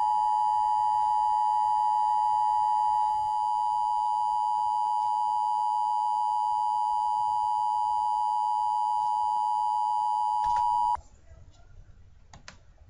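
Emergency Alert System two-tone attention signal: two steady tones close together near 1 kHz sounding at once for about eleven seconds, then cutting off abruptly. It is the alert tone that announces an emergency broadcast message.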